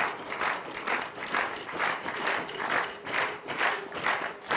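Large game-show prize wheel spinning, its pointer clacking over the pegs at about two clacks a second as it slows.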